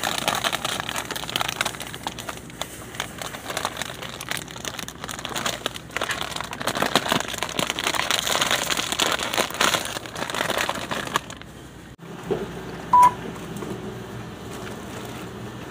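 Crinkling, rustling handling noise for about eleven seconds, then it stops abruptly. A quieter stretch follows with one short electronic beep.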